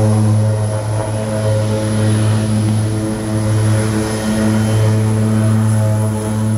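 Twin-engine seaplane on its take-off run across the water at full power: a loud, steady propeller drone with a thin high whine above it, holding an even pitch.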